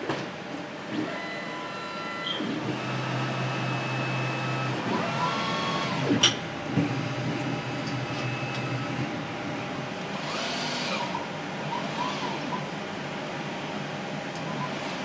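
Caliper Staccato laboratory automation robots running: servo and stepper motors whining at several steady pitches that start and stop, with a low hum for a couple of seconds at a time. Motor whines rise and fall in pitch twice, and there is a sharp click about six seconds in.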